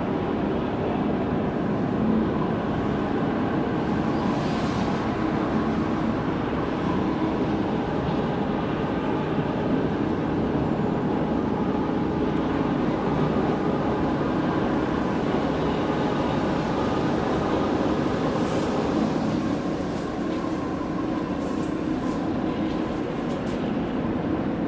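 Steady low drone of tugboat diesel engines working under way as they tow the crane barge, with several steady tones over a rumbling low end.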